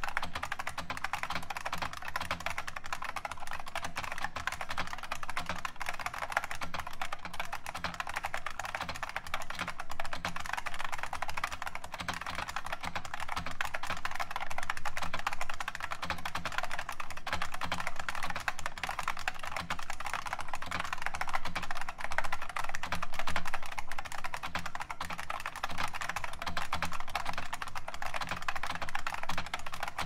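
Continuous fast typing on a modified IBM Model M keyboard (the 60% M64) with its original keycaps, the buckling-spring switches clicking in a dense, unbroken stream.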